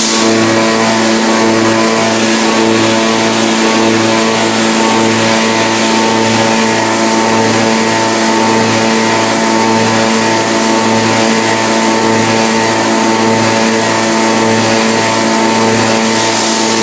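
CNC milling machine cutting metal under heavy load: a steady multi-tone whine from the spindle and cutter, over an even low throb and hiss.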